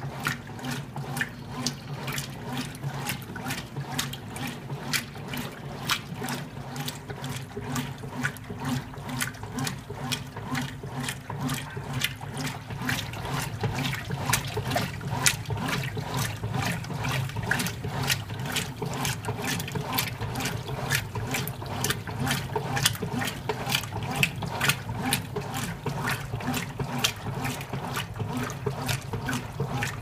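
Whirlpool WLA8444 belt-drive top-load washer agitating a medium load: a steady motor hum, with water swishing and splashing in a quick, regular rhythm at each agitator stroke.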